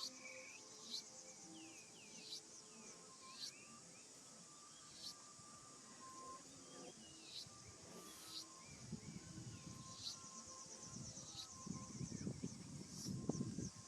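Forest ambience: a steady high insect drone with short chirps repeating about once a second and scattered bird calls. From about nine seconds in, a low rustling noise comes in and grows louder near the end.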